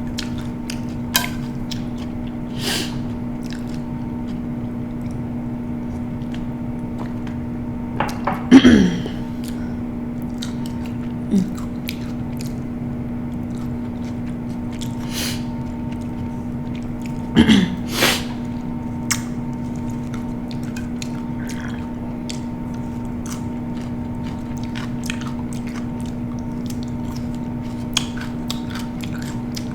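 Close-miked chewing and mouth sounds of someone eating, with scattered smacks and clicks over a steady low hum. Twice, about eight and seventeen seconds in, a short, louder throat sound drops in pitch; these are the loudest moments.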